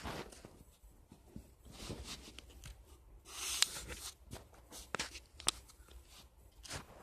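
Quiet rustling of bedding and phone handling, loudest in a short burst a little past halfway, with scattered light clicks and taps.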